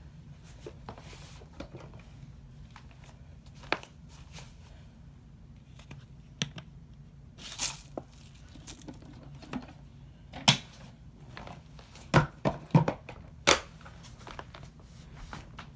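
Scattered knocks, clicks and short rustles, as of objects being handled and set down, over a faint low hum. The loudest knocks come in a quick cluster past the middle.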